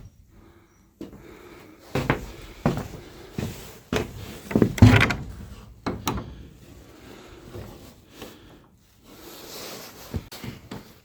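Irregular wooden knocks and bumps in a small room, loudest about five seconds in, with a softer scraping rustle near the end.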